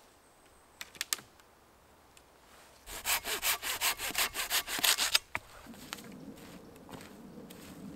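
A few light knocks of wooden poles about a second in, then quick rhythmic scraping strokes, about five a second, and a steadier scrape: a long wooden stick raking dry leaf litter and pine needles over the forest floor.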